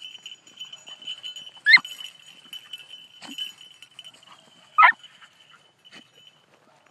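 Beagle puppy giving short, high yelping cries while trailing a rabbit, two loud ones about two and five seconds in with a couple of fainter ones between, over a steady high-pitched drone.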